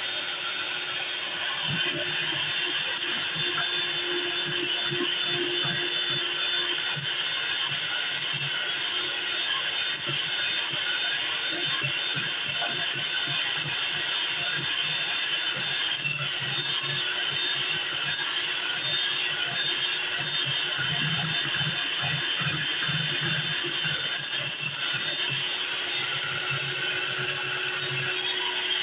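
Electric hand mixer running steadily, its beaters whisking a creamy egg-and-sugar batter in a glass bowl as oil is poured in a little at a time.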